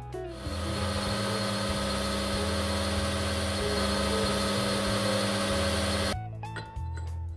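Metal lathe turning a metal disc with a carbide insert tool: a steady cutting hiss with the lathe's running hum, stopping abruptly about six seconds in. A music bass line plays underneath.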